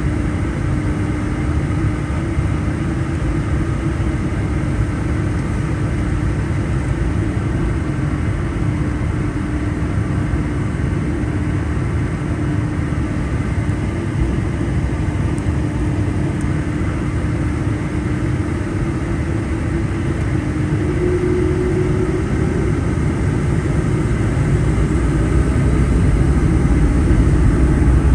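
Boeing 757-200 jet engines heard from inside the cabin, running at low thrust with a steady hum as the airliner lines up on the runway. In the last several seconds the engines begin to spool up for takeoff, growing louder with a faint rising whine.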